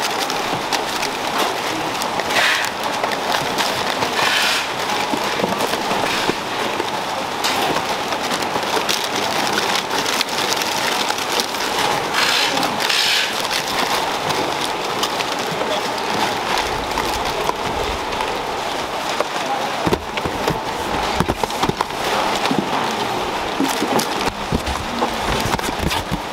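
Plastic snack sachets rustling and crinkling as they are grabbed by hand from a pile and packed into paper boxes: a dense, continuous crackle, over a steady hum.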